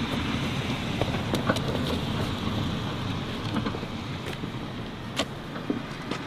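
A car passing on the street: a steady rush of tyre and engine noise that slowly fades, with a couple of light knocks.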